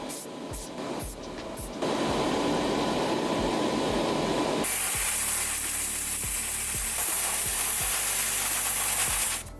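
Paint spraying onto a diecast toy body: a couple of short spurts of spray hiss, then a long continuous spray that changes tone about two seconds in and again near the middle, and stops suddenly near the end.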